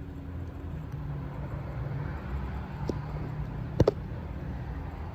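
Steady low rumble of road traffic, with one sharp click a little under four seconds in.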